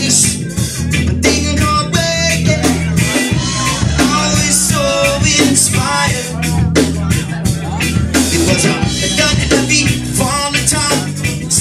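Live punk-reggae band playing through a loud PA: a lead singer's vocal over electric guitar, bass and a drum kit.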